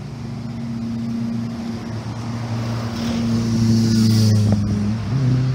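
Truck driving past on a road: its engine drone grows louder to a peak about four seconds in, and its pitch drops as it goes by near the end.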